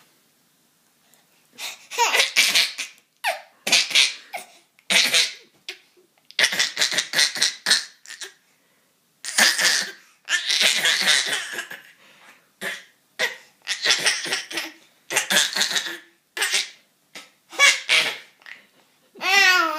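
A person's voice in about a dozen loud, breathy fits, each a rapid run of short bursts, like laughing or coughing fits. A wavering pitched vocal sound comes near the end.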